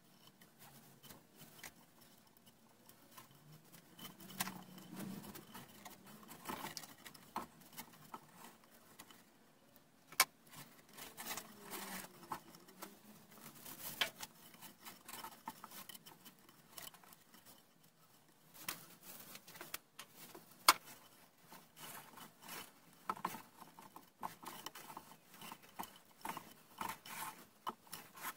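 Sisal rope being pulled and wrapped tightly around a square wooden post: faint rubbing and scraping of the rope against the wood, with a few sharp clicks, the loudest about two-thirds of the way through.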